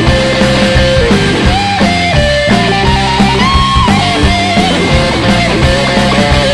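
Rock band playing an instrumental passage: electric guitar and drums, with a melody line that steps and slides in pitch over steady drum hits.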